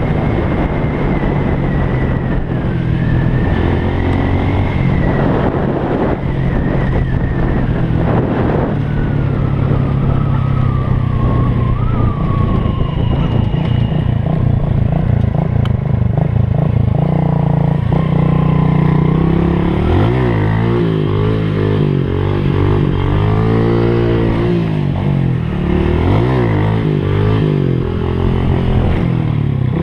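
Small Honda Pop motorcycle engine running under load on a dirt trail, held at fairly steady revs for the first half, then revving up and down repeatedly in the second half as the throttle is worked.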